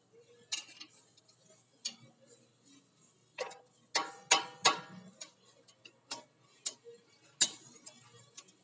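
Irregular metal clicks and clinks of brake pads and their shims being worked into a Kombi disc-brake caliper, with a cluster of louder, briefly ringing knocks in the middle and one more a little later.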